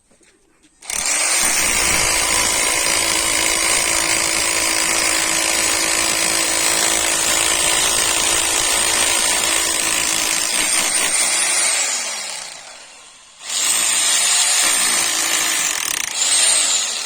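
Ingco rotary hammer drill drilling into concrete. It runs steadily for about eleven seconds, then its motor winds down. It starts again about a second later and runs briefly, with a short dip and pickup near the end.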